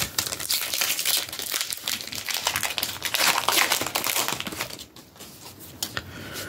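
Foil Pokémon booster-pack wrapper crinkling and crumpling in the hands. It dies down after about five seconds.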